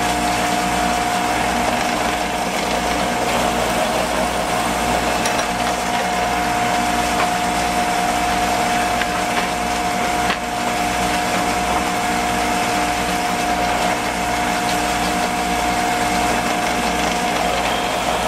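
Shopsmith running as a drill press, a steady motor whine, as a 3/8-inch Forstner bit bores shallow counterbore holes into a wooden board.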